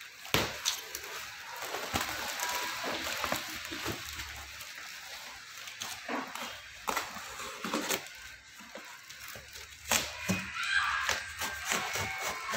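Cardboard box wrapped in plastic film and packing tape being torn open by hand: the plastic crackles and rustles, with irregular sharp rips and snaps as the tape and cardboard flaps are pulled apart.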